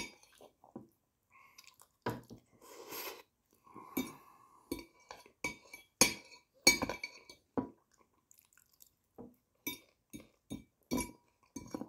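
Cutlery clinking against a plate in irregular short taps as someone eats, with a brief scrape about three seconds in.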